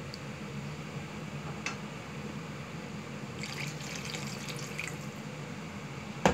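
Sardine broth, not yet boiling, sloshing in an aluminium pan as a wooden spoon stirs it, over a steady low hum. A patch of light clinks and rattles comes about halfway through, and a sharp knock at the very end.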